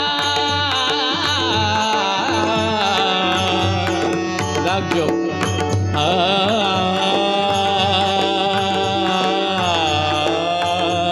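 Indian devotional abhang music: a voice sings a wordless, ornamented melodic line, held on one long note from about halfway through, over steady instrumental accompaniment and tabla.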